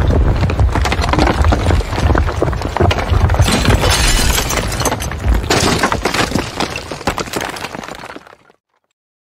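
Building collapse sound effect: a deep rumble under dense crashing and cracking of falling debris. It fades out and stops about eight and a half seconds in.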